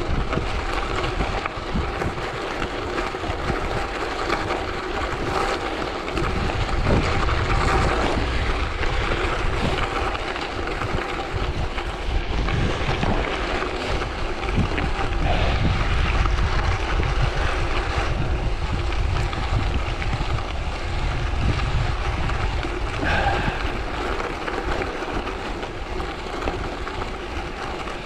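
Wind buffeting the microphone over the rattle and crunch of bicycle tyres on gravel during a fast downhill descent, with scattered sharp clicks from stones and bumps.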